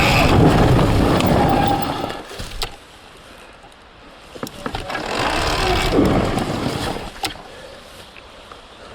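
Surron Ultra Bee electric dirt bike with a TORP TM50 Pro motor riding a wet forest trail: two surges of motor and drivetrain noise, one in the first two seconds and another from about five to seven seconds, whose motor whine falls as the throttle eases. Sharp knocks from the bike over the ground come between and after.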